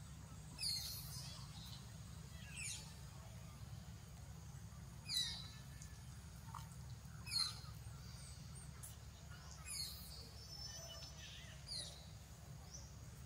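Short, high-pitched animal calls, each falling in pitch, repeated about every two seconds, over a steady low hum.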